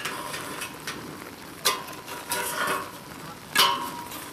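Metal hand digging tools striking and scraping into wet, gravelly soil: three sharp strokes a little under two seconds apart, each followed by a gritty scrape.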